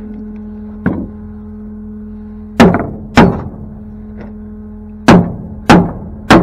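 Heavy steel tow chain clanking against the metal deck of a flatbed tow truck: a light clank about a second in, then five loud clanks, mostly in pairs about half a second apart. The truck's engine hums steadily underneath.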